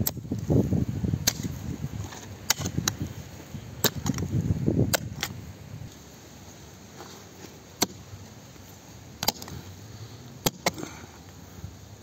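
About ten sharp clicks and knocks spread through, over low rumbling noise that stops about five seconds in.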